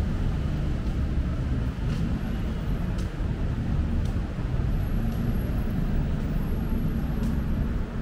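City street ambience dominated by a steady low rumble of road traffic, with a few faint clicks now and then.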